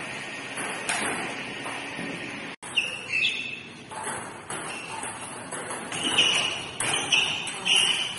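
Table tennis rallies: the ball clicking off bats and table in quick separate strikes, mixed with short high squeaks.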